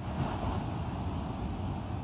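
Sea surf: waves breaking and washing on the shore, a steady low rumble with a hiss of water over it.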